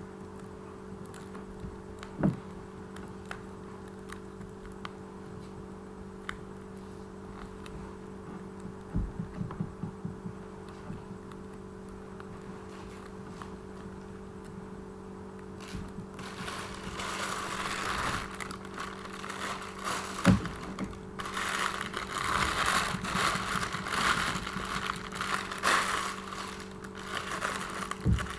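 Craft materials handled while a squishy is being made: a few isolated taps in the first half, then from about halfway on, repeated bursts of rustling and scratching, over a steady low hum.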